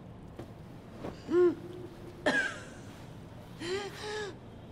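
A person's short wordless vocal sounds, three in all: a pitched one about a second in, a sharp breathy one a little after two seconds, and a pitched two-part one near the end.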